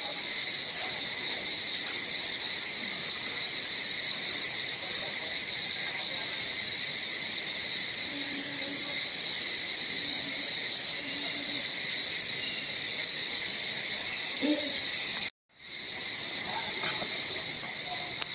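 Steady, high-pitched drone of an insect chorus, unbroken, with a fainter lower band beneath it. It cuts out for a split second about fifteen seconds in, then resumes.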